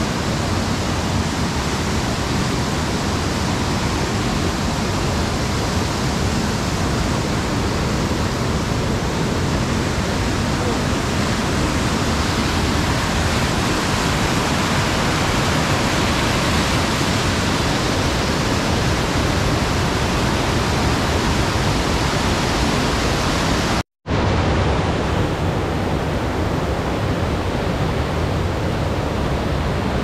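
Mountain river and waterfall in heavy flow: a loud, steady, even rush of water. The sound cuts out for an instant about three-quarters of the way through, then picks up again.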